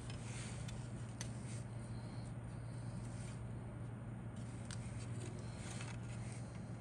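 Plastic model-kit wing parts on their sprue being handled and turned over: light rubbing with scattered small clicks of the polystyrene parts, over a steady low hum.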